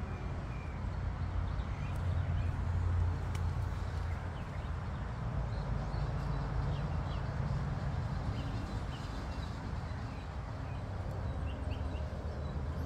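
Steady outdoor background noise with a low rumble and a few faint, short high chirps now and then.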